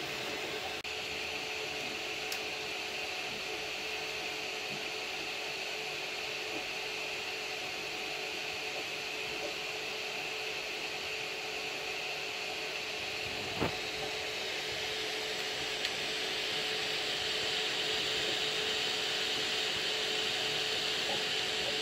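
Anycubic Kobra Max 3D printer running mid-print: its cooling fans whir steadily over a steady hum. There is a single click about 13 to 14 seconds in, and the whir grows a little louder about 16 seconds in.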